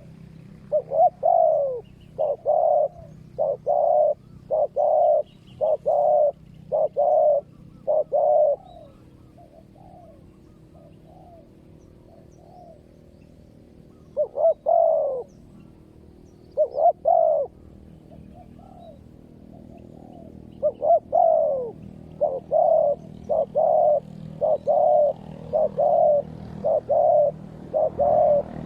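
Spotted doves cooing in rapid runs of loud, evenly spaced coos, about one a second, with fainter coos answering in the gaps between runs: a decoy dove and a wild dove calling back and forth.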